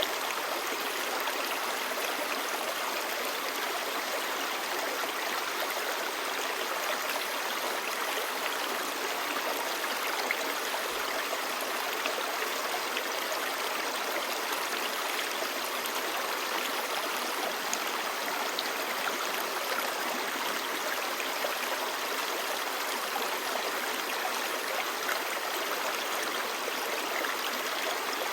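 Clear stream babbling steadily: an even, unbroken rush of running water that never lets up.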